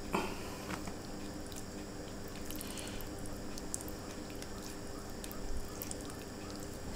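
Faint wet squishes and small clicks of fingers picking apart and tearing chicken in a thick sauce over rice, with a steady low hum behind.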